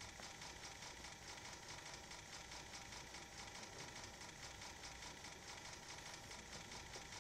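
Faint, fast, even clicking like a sewing machine: many camera shutters firing in continuous bursts, played back through the hall's speakers.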